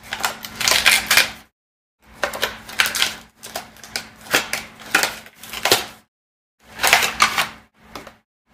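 Packaging rustling and crinkling as items are handled and unwrapped, in several bursts of crackle and clicks with short pauses between them.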